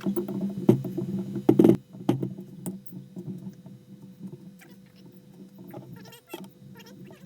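A few sharp metallic knocks and clinks of driveshaft parts and tools being handled, loudest in the first two seconds, over a steady low hum.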